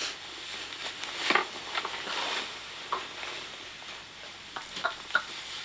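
Sleep-app recording played back from a phone: a steady hiss with scattered rustles and soft clicks from a restless sleeper moving in bed.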